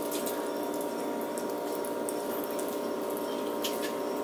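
Someone eating a saucy chicken wing: faint wet mouth clicks and smacks, a few near the start and again about three and a half seconds in, over a steady background hum.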